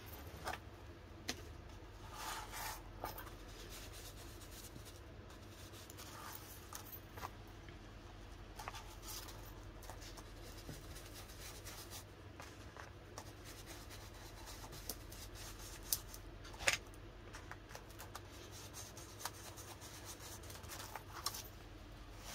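Faint tabletop craft-work sounds: scattered small clicks, taps and brief rustles of paper and card being handled, over a low steady hum.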